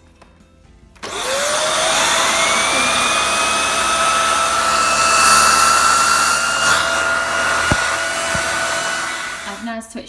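VAX Air Stretch Pet upright bagless vacuum cleaner switched on about a second in, its motor whine rising quickly to a steady pitch over a loud rush of air, then dying away near the end.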